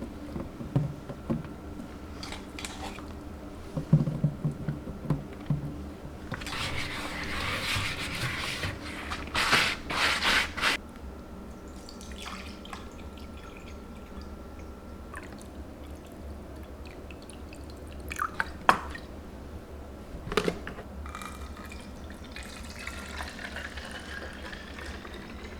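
Kitchen work with water and containers: scattered clicks and knocks, a few seconds of pouring water about a quarter of the way in, and near the end liquid filling a container, its pitch rising as it fills.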